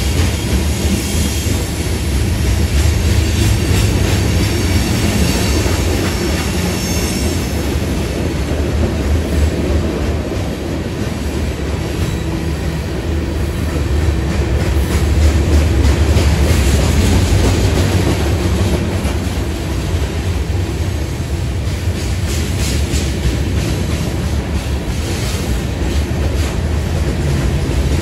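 A mixed freight train's cars (boxcars, covered hoppers, a tank car and lumber flatcars) rolling steadily past close by: a continuous low rumble with rattling and the clatter of wheels over the rail.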